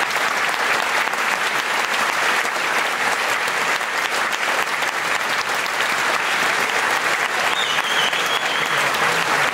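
Large audience applauding: dense, steady clapping that holds at one level throughout.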